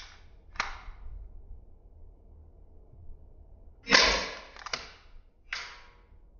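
Marushin M36 airsoft revolver heard slowed down: two clicks near the start, then a much louder shot about four seconds in, followed by two more sharp knocks within the next second and a half. Each sound is drawn out with a slow decay.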